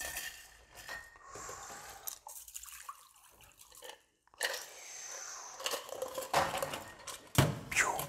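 Metal bar tools clinking as a Hawthorne strainer is flipped onto a shaker tin, then a cocktail trickling from the metal shaker through the Hawthorne strainer and a fine strainer into a martini glass. A louder clink comes near the end.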